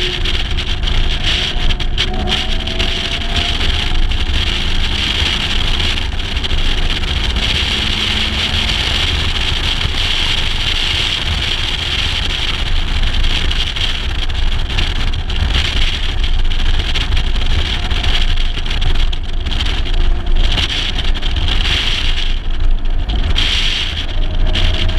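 A 1956 Mercedes-Benz 300 SL's 3.0-litre straight-six driving at road speed, heard from an outside-mounted camera with heavy wind rumble on the microphone. The engine note climbs briefly about two seconds in and again near the end.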